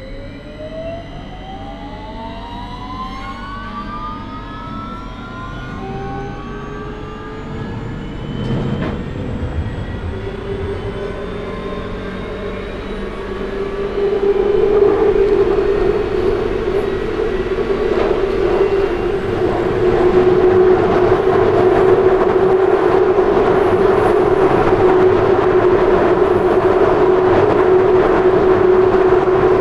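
London Underground 2009 Stock train accelerating away from a station: several traction motor whines glide up in pitch over the first ten seconds or so. They settle into a steady hum while the wheel and tunnel noise grows louder in two steps as the train reaches running speed.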